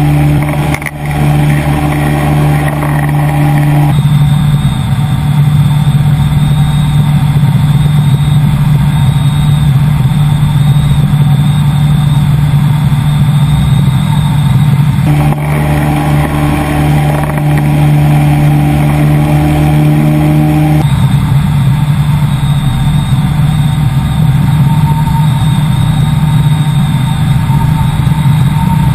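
Ultralight trike's engine and pusher propeller running steadily in cruise flight, loud, with wind rush on the microphone. The tone changes abruptly three times as the recording switches between cameras.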